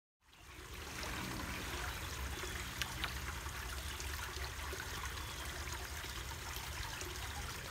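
Water trickling and splashing into a small garden fish pond, a steady running-water sound that fades in over about the first second.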